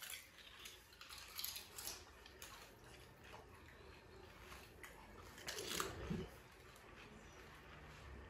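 Faint eating sounds of pani puri: crisp puris crunched and chewed whole, with small clicks and squelches as they are dipped into the spiced water. A short louder sound comes a little past halfway.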